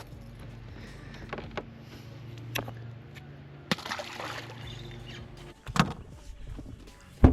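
A steady low hum under scattered knocks and clunks of gear in a fishing boat, with a short rushing, splashy noise about halfway through and a sharp knock at the very end.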